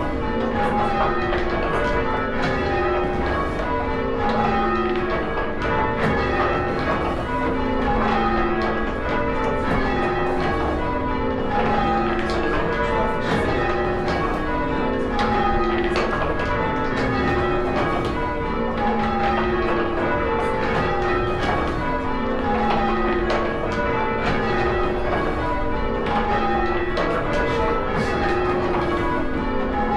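A ring of six church bells in change ringing. The bells are struck one after another in a steady, repeating stepped sequence with no pause.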